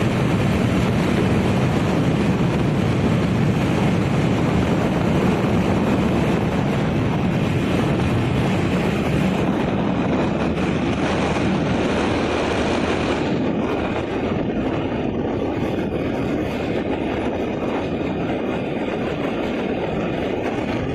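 Steady rushing road and wind noise from a motorcycle on the move, with wind buffeting the microphone. It becomes a little duller about two-thirds of the way through.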